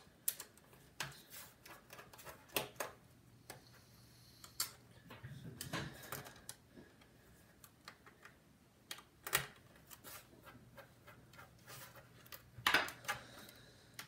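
Irregular clicks and knocks of plastic and metal as the underside of a Dell Latitude E6430 laptop is worked on: a screw being undone and the drive bay parts pried loose, with a few louder knocks among lighter clicks.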